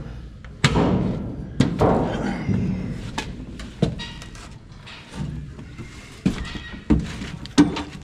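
A series of sharp thunks and knocks on a combine's metal cab: boots on the diamond-plate floor and bodies and tools bumping the panels as people climb about inside, with shuffling between the hits.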